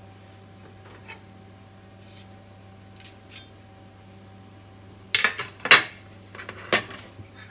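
Metal carving fork clinking faintly against a stainless steel pressure cooker pot, then a run of loud metal clatters about five seconds in as the fork and the pot's contents knock against a stainless steel platter, over a steady low hum.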